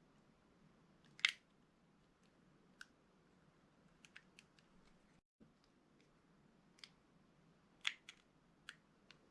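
Knife blade cutting into soft soap: faint, scattered crisp cracks and clicks, the two sharpest about a second in and near the end.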